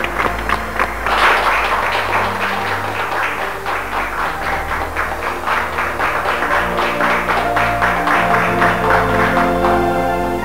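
A few people clapping over background music. The clapping stops near the end while the music carries on.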